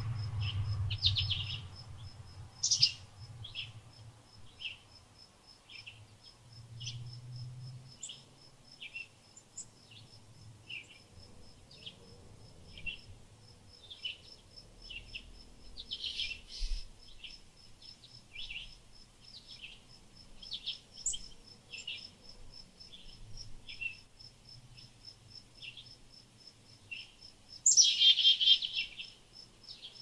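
Small songbirds giving short chirps about once a second, with louder bursts of calling near the start, in the middle and near the end, over a steady, high, pulsing insect trill.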